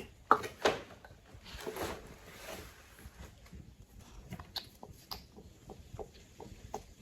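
Small items being handled and packed into a bag: quick light knocks and clicks, the two loudest within the first second, then softer rustling and scattered taps.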